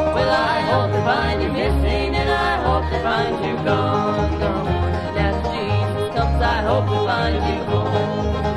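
Bluegrass band playing an instrumental passage from a vinyl record: banjo rolls over acoustic guitar and a pulsing upright bass line, with sliding lead notes on top.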